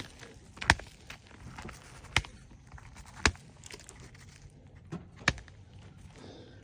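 About five sharp, irregularly spaced knocks and cracks from work on an asphalt shingle roof.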